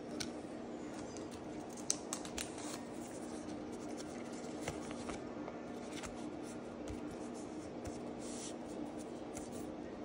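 Trading cards handled by hand: crisp clicks, snaps and rustles as a holographic Pokémon card is slid into a thin plastic card sleeve, the sharpest click about two seconds in. A steady low hum runs underneath.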